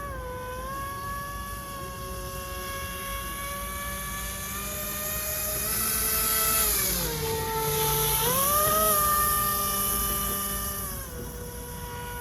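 Brushless electric motor and three-blade propeller of an RC airboat running, a steady whine with harmonics. Its pitch drops at the start, holds, dips lower about seven seconds in and climbs back quickly near eight seconds, then drops again near the end, loudest through the middle.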